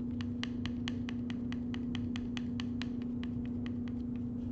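Steel palette knife working oil paint against paper on a hard table, making quick regular ticks about five a second that stop shortly before the end. A steady low hum runs underneath.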